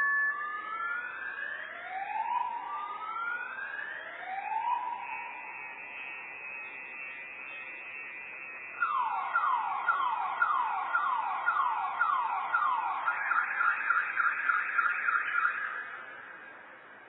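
Distant car alarm cycling through its tones: rising whoops about every second and a half, a steady tone, then rapid falling chirps about two and a half a second, switching to a faster, higher warble before fading out near the end.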